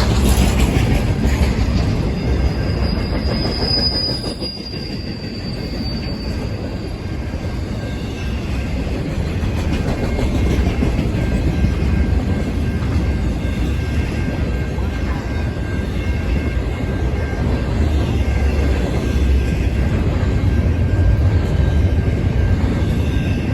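Freight train cars rolling past with a steady low rumble and wheel clatter, and a brief high wheel squeal about three to six seconds in.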